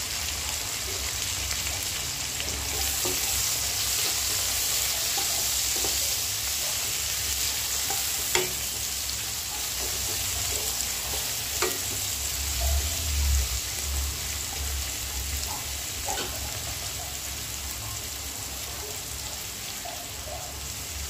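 Sliced onions sizzling as they fry in hot oil in a kadai, stirred with a wooden spatula that knocks sharply against the pan a few times.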